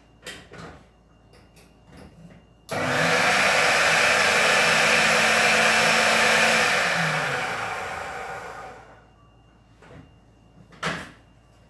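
Countertop food processor motor switched on to mix flour and salt: it starts abruptly, runs at a steady loud whir for about four seconds, then is switched off and spins down with a falling pitch, fading out over about two seconds. Small clicks come before it and a single knock near the end.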